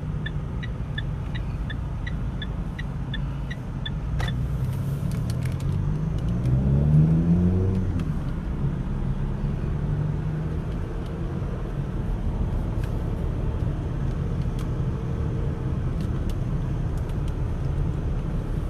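Engine and road rumble heard from inside a Mitsubishi Pajero on the move. For the first few seconds there is a regular high ticking, about three a second. Around six to eight seconds in, an engine rises in pitch as it accelerates, the loudest moment.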